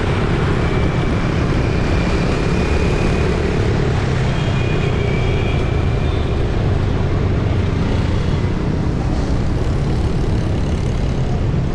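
Dense city street traffic: a steady wash of engines and tyres, with a few brief high thin tones over it between about one and six seconds in.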